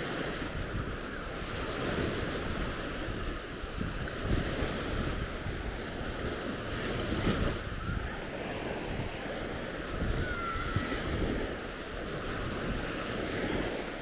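Sea waves breaking and washing onto the beach, with wind rumbling on the microphone.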